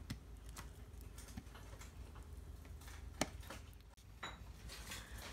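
Scattered light clicks and taps as pulp-covered cacao beans are pulled from the pod and dropped into a plastic container, with one sharper tap about three seconds in.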